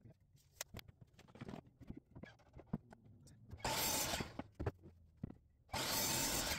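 Small taps and clicks of a board being handled and marked with a pencil, then two short bursts of about a second each from a sliding miter saw cutting through a white oak board, one near the middle and one at the end.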